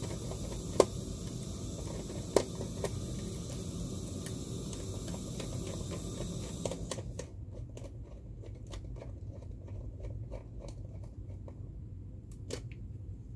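Hands handling a red control wire and pushing it into a DIN-rail terminal block: small ticks and rustles, with two sharp clicks at about one second and two and a half seconds in, over a low steady hum.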